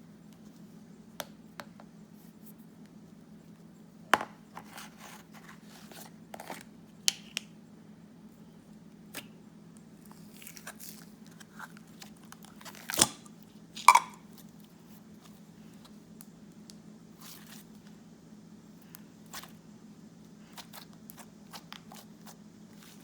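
Hands squishing and stretching a blue clay and white-glue slime mixed with clear slime, making scattered sticky clicks and pops, with a few louder pops around the middle. A faint steady hum lies underneath.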